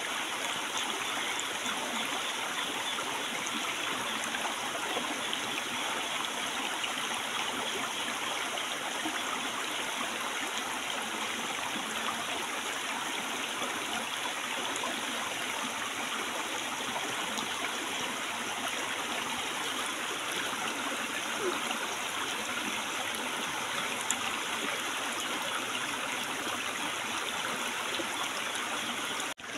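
Shallow rocky stream running over stones: a steady rush of flowing water, briefly dropping out near the end.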